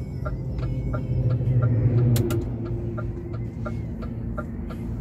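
Truck's turn-signal indicator ticking evenly, about three ticks a second, over the diesel engine idling in the cab. The engine note swells briefly about two seconds in, with a sharp double click.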